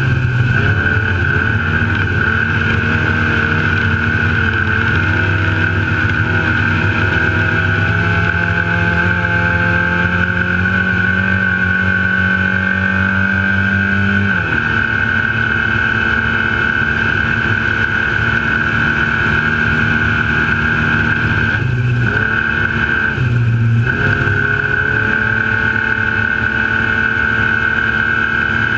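Trophylite desert race truck driving flat out, its engine running hard. The engine's pitch climbs slowly for about ten seconds, drops sharply about fourteen seconds in, and dips briefly twice near the end, over a steady high whine.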